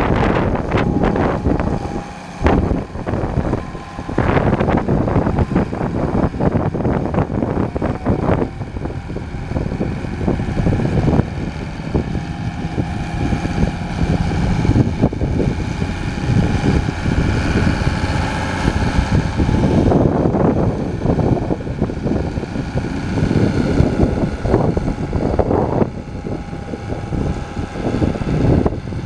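International Hydro 100 tractor's diesel engine running as the tractor drives off and turns, with heavy wind buffeting on the microphone.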